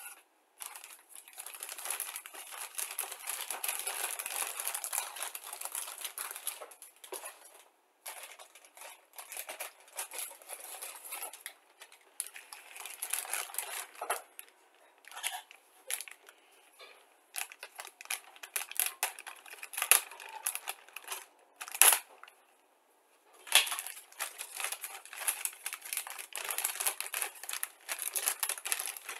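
Clear plastic bag of model-kit sprues crinkling and crackling as it is handled, in irregular stretches with short pauses. A couple of sharp clicks come in the last third.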